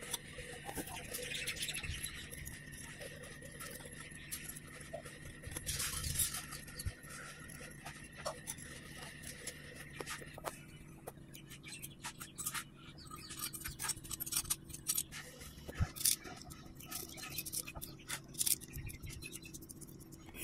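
Scattered light clicks and taps of metal table-fan motor parts being handled and fitted together as the rotor goes back into the housing on its new bushes, the clicks coming more often in the second half. A faint steady high tone runs underneath and stops about halfway through.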